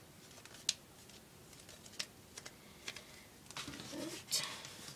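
Hands handling a duct tape pencil case and its plastic zipper: scattered light clicks, with a short rustle about four seconds in.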